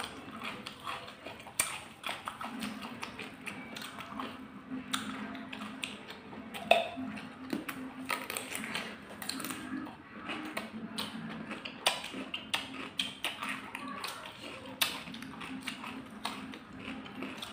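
Close-up eating sounds: crunchy bites and chewing of raw cucumber with omelette, a run of irregular crunches and mouth clicks, one louder crunch about seven seconds in, over a faint steady low hum.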